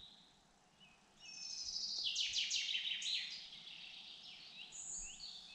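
Woodland songbirds singing: a rapid run of high, quick downward-sweeping notes that starts about a second in, with a thin high whistle near the end.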